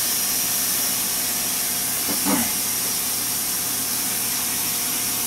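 Steady hiss from a Mirro-Matic 16 aluminium pressure cooker frying chicken in grease on the stove. It is still coming up to pressure, before the weighted regulator on its spout starts venting.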